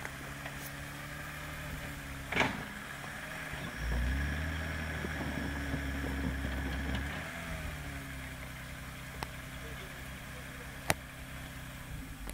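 BMW E30 325e 2.7-litre straight-six engine in a homemade tractor running at low revs, revving up for about three seconds near the middle and then dropping back. A short sharp sound about two seconds in, and a click near the end.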